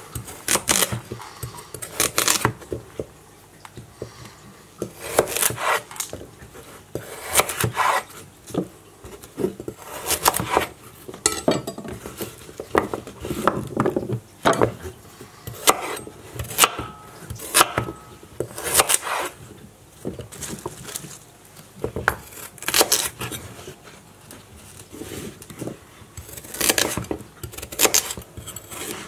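Chef's knife chopping carrots on a wooden cutting board: sharp chops come in irregular bunches, with short pauses between them as the cut pieces are moved aside.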